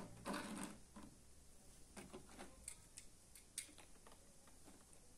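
Faint handling of die-cast toy cars on a model diorama: a soft rustle as they are picked up, then a few scattered light clicks and ticks, the sharpest about three and a half seconds in.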